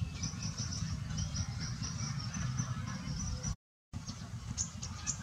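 Small birds chirping in quick repeated notes over a steady low rumble. The sound drops out for a moment about three and a half seconds in, then the chirping goes on, sharper.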